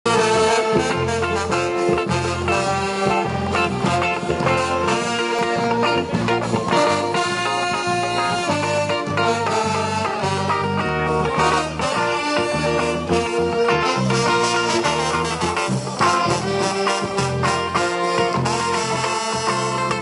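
Municipal brass band playing a tune, with trumpets, saxophones and a sousaphone.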